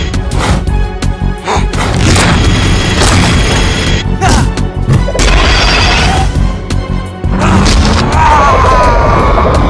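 Cartoon action soundtrack: music under a quick run of booming impacts and crashes, with a wavering pitched effect near the end.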